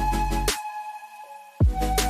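Background music with an electronic beat. The bass and drums drop out about half a second in and come back with a heavy kick about a second later.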